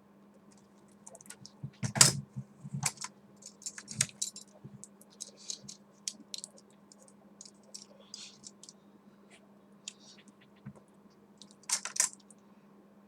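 Handling noise of small objects: irregular light clicks, taps and rattles, with two louder knocking clusters about two seconds in and near the end, over a faint steady low hum.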